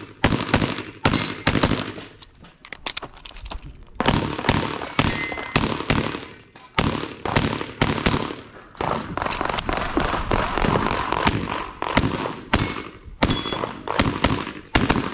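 Pistol shots from a custom 2011 chambered in .357 SIG, fired in quick strings with short pauses between them.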